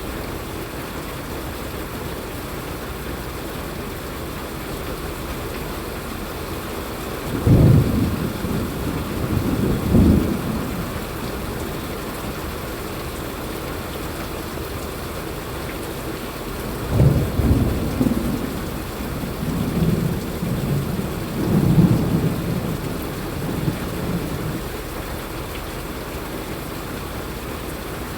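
Steady rain, with two rolls of thunder rumbling low: one starting about seven seconds in and lasting around three seconds, a longer one from about seventeen seconds in lasting some seven seconds.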